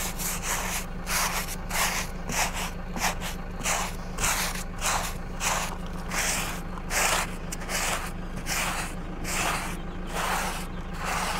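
Rhythmic scrubbing strokes, about two a second, as a rubber tyre sidewall is rubbed back and forth by hand to clean its lettering.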